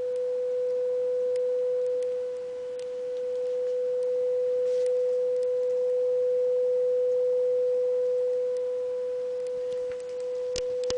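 Steady sine-wave test tone, about 500 Hz, played through the amplifier during a spring reverb test, with a faint overtone an octave above it. A couple of clicks come near the end.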